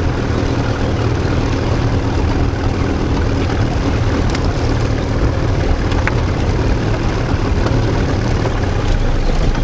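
A small boat's outboard motor running steadily at low speed.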